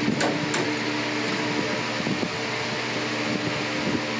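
A machine hums steadily on one fixed pitch, with a couple of sharp clicks in the first second and light knocks near the end as wood is handled.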